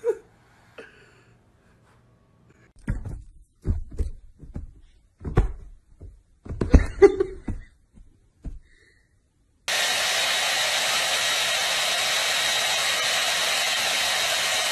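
Hair dryer blowing steadily, switching on abruptly about ten seconds in and then the loudest sound. Before it comes a run of soft, scattered thumps.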